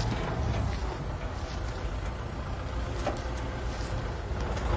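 Kubota M6040 tractor's four-cylinder diesel engine running steadily under load as it pulls a disc plough through dry ground, with a deep, even rumble.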